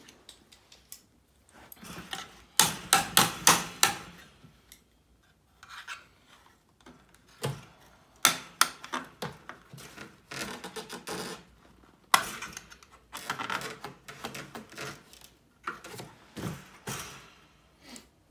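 Irregular knocks, clicks and scraping of sheet metal as the air handler's heater-strip and control panel assembly is handled and shifted. The sounds come in clusters of several sharp strikes, with rubbing between them.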